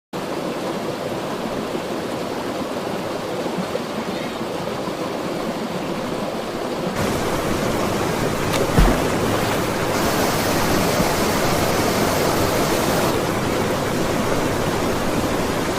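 Valley stream water rushing, a steady noise that turns abruptly louder and fuller about seven seconds in. A single brief low thump sounds near nine seconds.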